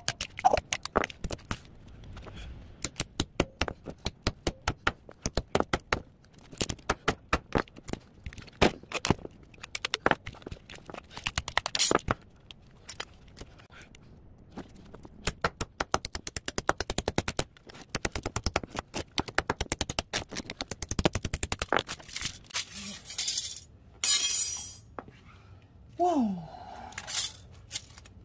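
A hammer taps again and again on the spine of a steel kitchen knife driven as a wedge into a small transformer's laminated steel core, making sharp metallic clinks in quick bursts of several a second. Near the end there is a brief scrape and rattle as the steel plates come loose.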